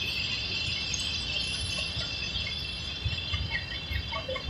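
Loaded ballast hopper wagons rolling slowly past: a steady low rumble, with a few heavy wheel knocks over the last second and a half. A steady high-pitched shrill sits over it throughout.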